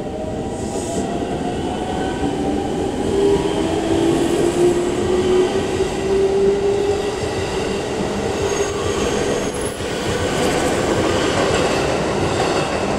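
Another electric train on the neighbouring track, heard from inside a stopped train car: a motor whine rises slowly in pitch over rumbling wheel noise, swelling through the middle and easing off near the end.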